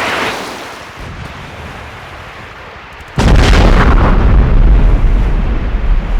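A rushing noise dies away, then about three seconds in a sudden loud explosion breaks out, followed by a deep rumble that lasts about three seconds.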